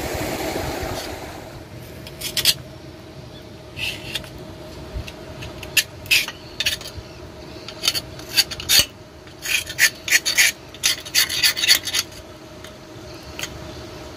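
A metal tool scraping and rasping inside the rusty housing of an Alkon NS 150 water pump: irregular strokes from about two seconds in, coming fastest in a run near the end. The first second or so is churning water.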